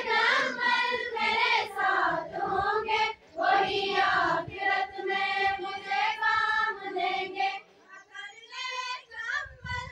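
A group of schoolgirls singing together in unison, with long held notes. The singing stops about eight seconds in, and quieter, shorter voice sounds follow.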